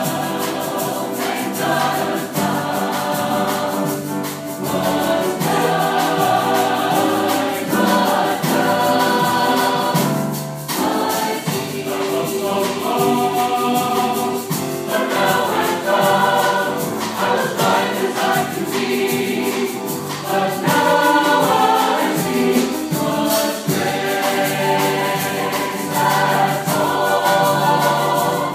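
Mixed choir of men's and women's voices singing a sacred song in harmony, accompanied on piano.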